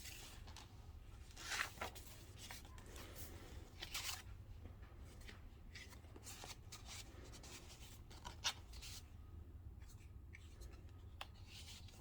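Pages of a handmade paper junk journal being turned and handled: faint paper rustling with a few sharper page flips, about a second and a half in, around four seconds, and again past eight seconds.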